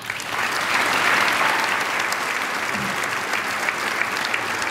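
Audience applauding: many hands clapping together, building up about a second in and then holding steady.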